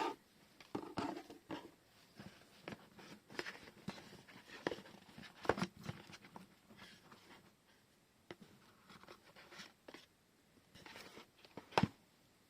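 Handling noises of washi tape and paper at a desk: scattered light clicks, taps and rustles, with one sharp click near the end.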